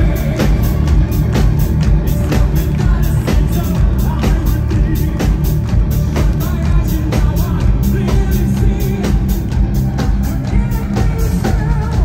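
Live rock band playing at full volume: a drum kit keeps a steady beat of about three hits a second over heavy bass and guitars.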